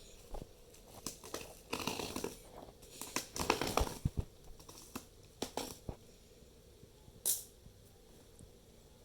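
Packaging being handled and unwrapped: crinkling plastic and paper rustling with scattered small knocks, and a short hiss about seven seconds in.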